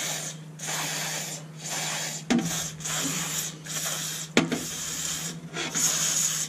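Repeated short bursts of GT85 aerosol spray, about one a second, sprayed through a straw onto a power window motor's rusty, oily armature and worm shaft to clean it. Two sharp knocks come about two and four seconds in.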